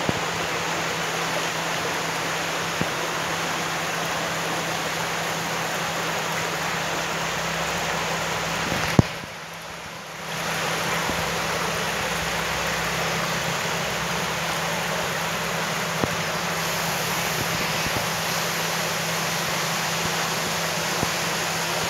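Steady rush of running water with a low steady hum beneath it. About nine seconds in a sharp click comes, the rush drops away for about a second and a half, then returns.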